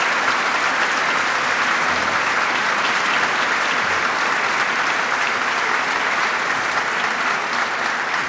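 A large audience applauding steadily, a dense sustained clapping.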